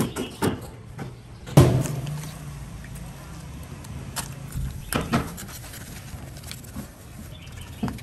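A large knife cuts and scrapes along a big parrotfish's scaled skin, with sharp knocks of the blade and the fish against a plastic cutting board. A loud thump comes about one and a half seconds in, followed by a low hum lasting a few seconds.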